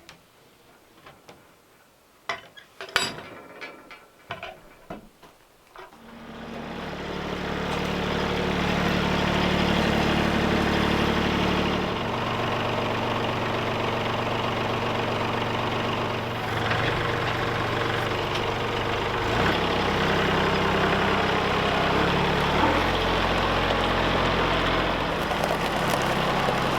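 A few sharp clicks and knocks, then an engine starts about six seconds in and runs steadily, its speed shifting several times.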